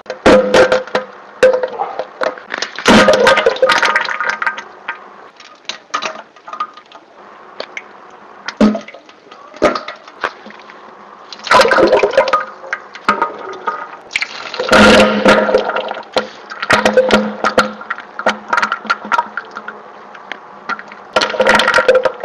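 A series of loud farts in bursts a few seconds apart, quieter through the middle, over a steady background hum.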